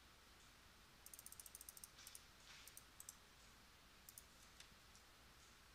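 Faint computer mouse clicks: a quick run of about ten scroll-wheel notches about a second in, then a few separate button clicks.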